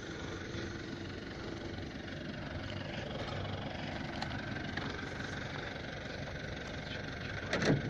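A vehicle engine idling steadily at low level, with a brief short sound like a voice near the end.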